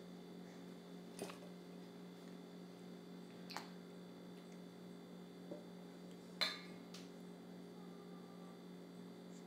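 Quiet kitchen with a steady low electrical hum and a few light, sharp clicks of dishes and utensils, the loudest about six and a half seconds in.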